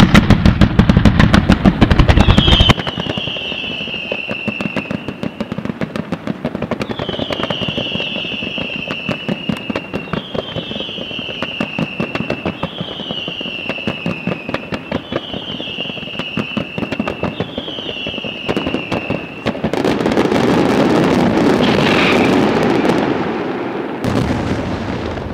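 Fireworks display: a dense, very loud barrage of rapid bangs for the first few seconds, then a steady stream of quick crackling reports with a whistle sliding down in pitch every two to three seconds, six in all. Near the end a loud, dense rumble of many bursts together takes over.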